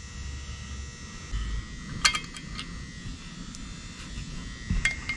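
Handling noise: a few light clicks, a quick cluster about two seconds in and one more near the end, among low bumps, over a steady faint hum.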